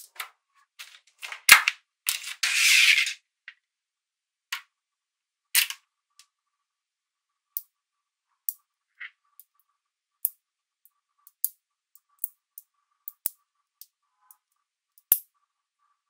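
Small magnetic balls clicking and snapping together as they are pressed and fitted into place by hand, in irregular single sharp clicks. About two seconds in there is a second-long scraping rattle of balls.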